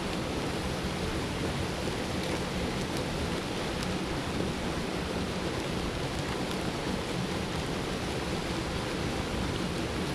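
Water running over a small spillway: a steady, even rush of falling water.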